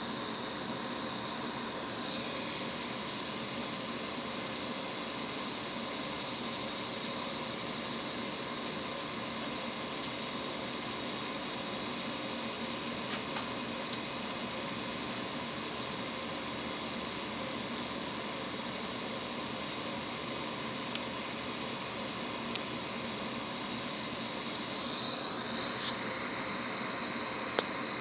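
Hard drive spindle motor spinning its platter at speed, giving a steady high-pitched whine over a light hiss. The pitch slides briefly about two seconds in and again near the end, and a few light clicks come in the latter half.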